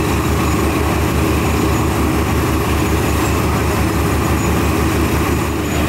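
Dando Terrier drilling rig and its track-mounted air compressor running while air-drilling at an angle into the ground: a loud, steady mechanical din with an even low pulsing about five times a second.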